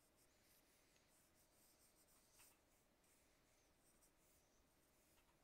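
Very faint scratching of a pencil sketching on paper, in near silence.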